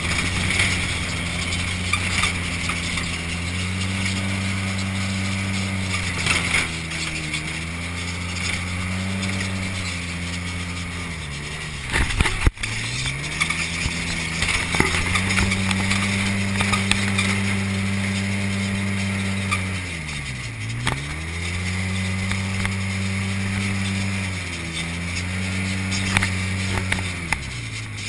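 Side-by-side UTV engine heard from inside the cab while driving over sand. The engine note rises and falls with the throttle and drops away sharply twice, about twelve seconds in and again about twenty seconds in, with a few knocks and rattles around the first drop.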